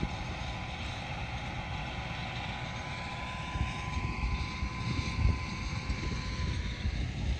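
New Holland TD75D tractor running at a distance while it works the field, heard as a steady high whine over a low, uneven rumble.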